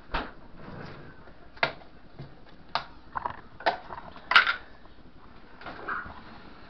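A handful of short knocks and clatters of dishes and utensils being handled on a kitchen counter and stove, the loudest about four and a half seconds in.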